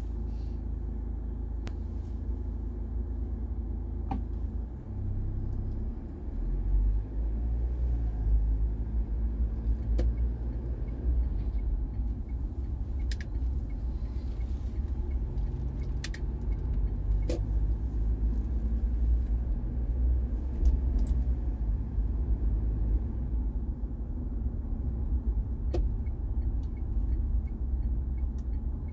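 A car driving along: steady low rumble of tyres and engine on the road, swelling a little about six seconds in, with a few faint ticks.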